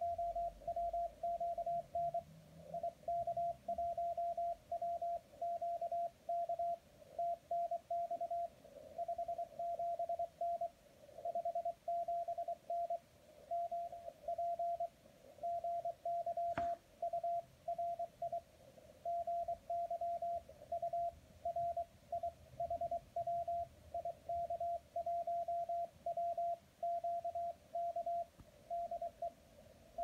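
Morse code (CW) from an amateur radio contact received on the 80 m band by a Teensy Convolution SDR: a single tone near 700 Hz keyed in dots and dashes at about 20 words per minute. A single sharp click a little past halfway.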